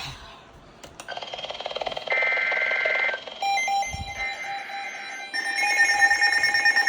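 Weather radio receivers sounding their electronic alert alarms for an incoming warning. Beeping tones start about a second in, and more alarms join in stages until several sound at once, pulsing rapidly near the end.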